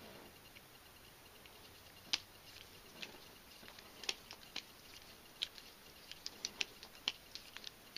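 A karambit knife being flipped around the finger through its ring, making scattered sharp clicks and taps that come more often in the second half.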